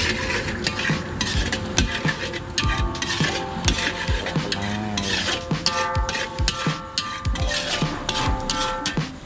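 Metal spatula scraping and clattering against a large aluminium wok as fried rice with diced vegetables is stir-fried, in quick irregular strokes over a light sizzle.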